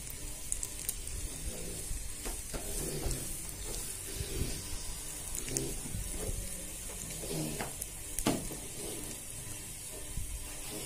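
Hot oil sizzling in a steel ladle with garlic, chillies, cumin and asafoetida frying in it, a tadka for dal. The sizzle is a steady hiss with scattered small pops and crackles.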